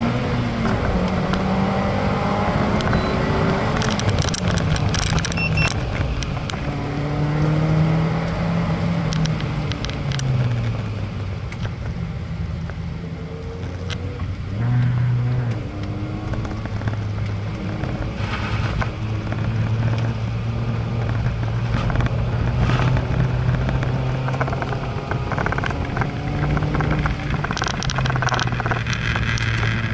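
Engine of a vehicle driving a timed practice lap, running hard with its pitch climbing and then dropping in steps at gear changes several times.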